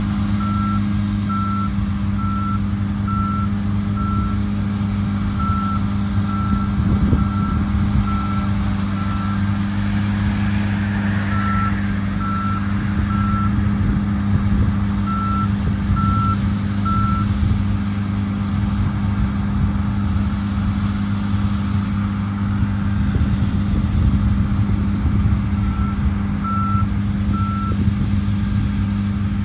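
Heavy diesel farm machinery running steadily at work, with an electronic warning beeper sounding about once a second in runs that start and stop several times.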